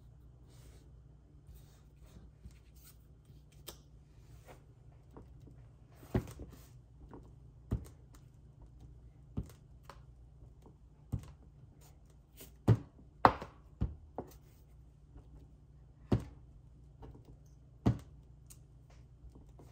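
Irregular sharp knocks and taps of card-making tools and supplies being handled and set down on a work table, about ten in all, with faint rustling between.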